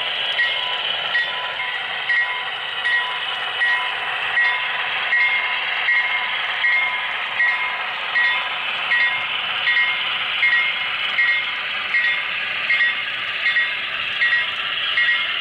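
HO-scale Broadway Limited Pennsylvania Railroad Centipede diesel locomotive models running with a long coal train: a steady, thin engine drone with little bass and a regular click about every three-quarters of a second.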